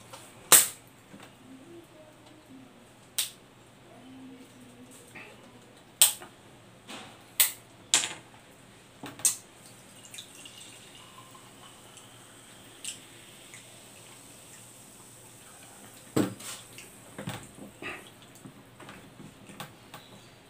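Sharp plastic clicks and crackles as a small bottle is handled and its cap twisted, then liquid poured from the bottle into a glass. A few knocks near the end as the glass and the bread on the table are handled.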